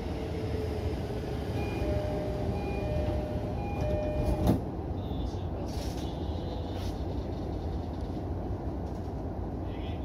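E231 commuter train's door-closing chime: a two-tone ding-dong sounding about three times, ending in a thud about four and a half seconds in as the doors shut. Throughout, the stopped train gives a steady low hum.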